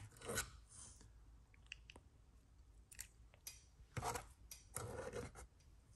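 Small pieces of blue painter's tape being peeled off a circuit board and handled: faint, short crackly rustles and clicks, the loudest about four and five seconds in.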